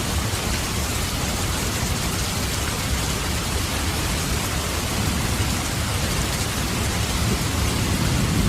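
Steady rain falling: a dense, even hiss with a low rumble underneath, swelling slightly near the end.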